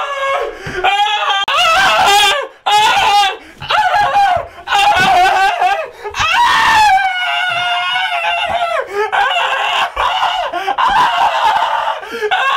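A man screaming and shrieking shrilly in repeated bursts with short breaks, as he is attacked with a hammer.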